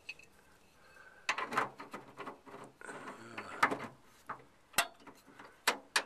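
Fiat Spider door latch and inside-release rod being worked by hand: a stretch of rattling, clattering and creaking in the linkage, then sharp single clicks near the end.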